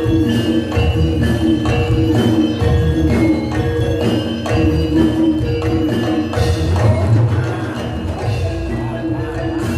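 Javanese gamelan playing Jathilan dance accompaniment: ringing struck metal keyed instruments and gongs over a steady beat of low drums.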